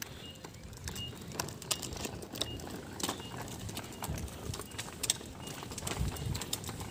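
A child's plastic tricycle rolling over rough asphalt, with someone walking along behind it: light, irregular clicks and clatter, about two a second, over a low rumble that grows louder in the last few seconds.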